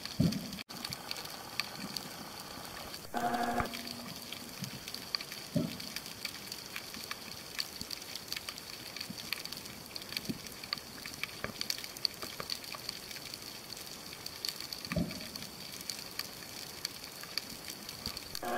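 Underwater ambience heard through a camera in its housing: a steady, dense crackle of tiny clicks, with a brief low hum about three seconds in.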